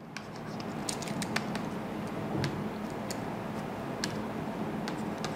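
Faint, irregular clicks and taps of a stylus writing on a tablet, over a steady background hiss and low hum.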